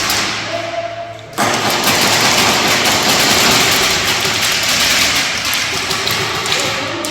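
Airsoft gun firing full-auto, a fast buzzing stream of shots. It starts suddenly about a second and a half in and runs on without a break.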